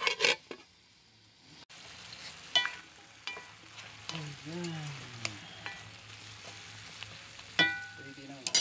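A metal spoon stirring squash and okra sautéing in a cooking pot, with sharp clinks against the pot that ring briefly, every second or two.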